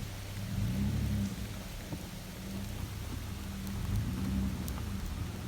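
Heavy rain falling, with scattered drop ticks over a steady low hum.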